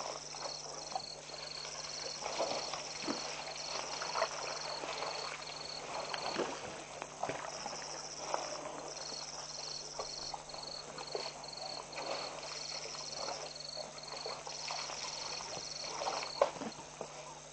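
A herd of African elephants drinking and moving at a waterhole: scattered splashes and scuffs of feet and trunks. Behind them, insects chirp steadily about three times a second, with a higher trill that comes and goes, over a steady low hum.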